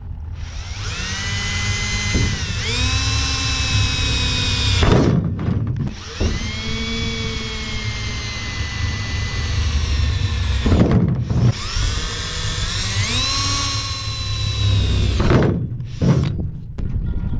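Cordless drill boring holes through the truck's cab-roof sheet metal: three long runs of motor whine with short pauses between, the pitch dipping and recovering as the bit bites, then a couple of brief blips of the trigger near the end.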